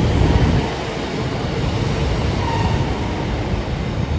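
Diesel multiple unit pulling out of the platform, its engines and wheels making a steady rumble on the track.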